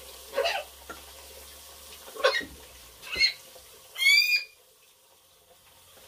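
Blue-and-yellow macaw bathing in a sink: a few short splashy flurries of wing-flapping in the water, and one short whistle-like call about four seconds in.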